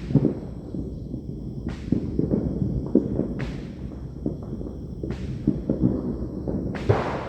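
Fireworks and firecrackers going off one after another: a dense run of low booms, with a sharper crack about every second and a half.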